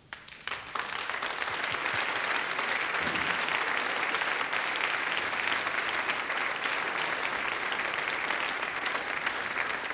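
Audience applauding: many hands clapping, swelling up about half a second in and then holding steady.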